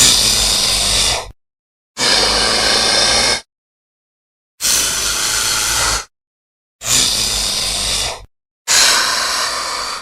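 Jurassic Park velociraptor sound effects: five separate airy, rasping calls with little clear pitch, each about a second and a half long, separated by dead silence.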